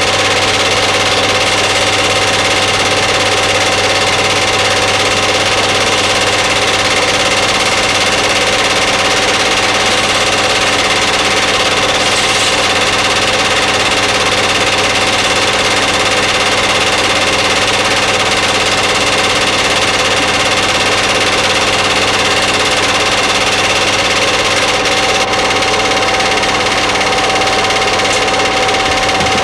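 Film projector running: a steady mechanical whir with a constant low hum.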